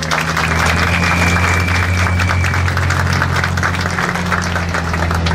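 A crowd applauding: dense, steady clapping, with a steady low hum underneath.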